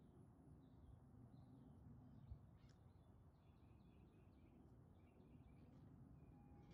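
Near silence: faint birdsong, short chirping notes repeated over and over, over a low rumble of outdoor background noise, with one soft click about two seconds in.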